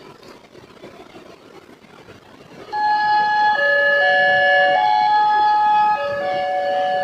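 Electronic railway level-crossing warning siren of the Wantech type switching on about three seconds in: loud, steady electronic tones stepping between a few pitches about once a second, often two notes at once, over faint background noise before it starts.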